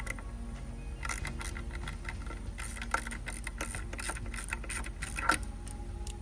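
Light clicks and rattles of small metal parts and connectors being handled during a horn swap, in a busy run with two sharper clicks, about three seconds in and just past five seconds.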